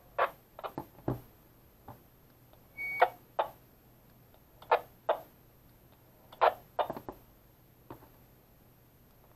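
Handheld two-way radios' push-to-talk buttons clicking, pressed and released in pairs several times, as a two-way cross-band repeat is tried. Just before three seconds in, a radio gives one short high beep.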